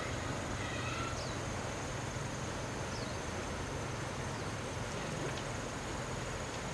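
Outdoor ambience: a steady high insect drone over a low rumble, with a few short chirps about a second in.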